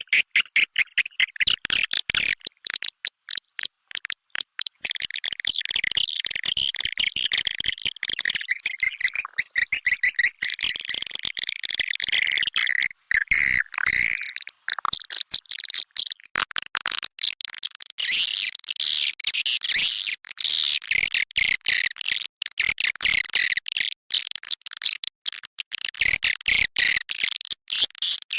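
Recorded swiftlet calls: a dense, continuous chatter of rapid high-pitched twitters and clicks, the kind of call track played to draw swiftlets in the breeding season.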